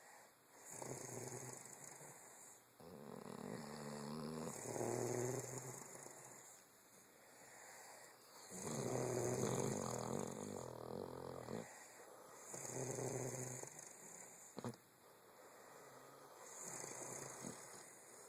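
Snoring in a series of rattling breaths, each a second or two long, coming every few seconds with quieter gaps between. A single sharp click sounds about two-thirds of the way through.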